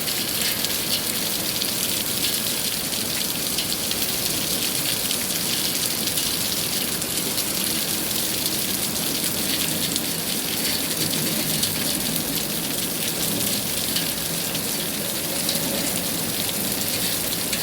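Steady rain falling, a dense, even patter of raindrops on a surface.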